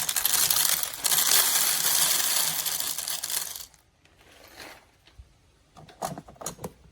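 Whole coffee beans poured into the grinder hopper of a De'Longhi Dinamica espresso machine, a dense rattle that stops about three and a half seconds in. A few light clicks follow near the end.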